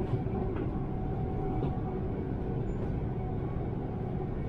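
Steady low rumble of an electric train running on the track, heard inside the passenger car, with a faint steady whine over it.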